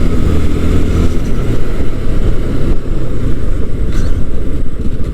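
125cc motorcycle engine running steadily under way, a dense low rumble of rapid firing pulses mixed with riding noise.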